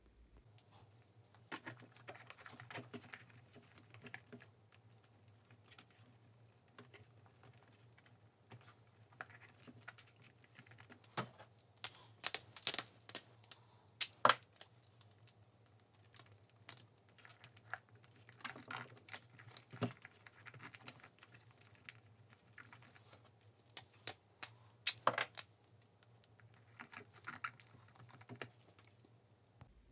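Scattered clicks, taps and rustles as a taped lithium-ion battery pack and its wires are handled and fitted into a 3D-printed plastic robot chassis, with a few louder sharp clicks.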